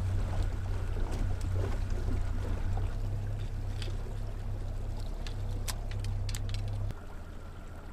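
Outboard motor on a small fishing boat running with a steady low drone, together with water noise. A few sharp clicks come in the second half. The drone drops off suddenly near the end.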